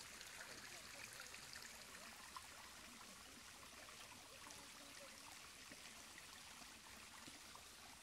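Faint, steady rush of distant running water.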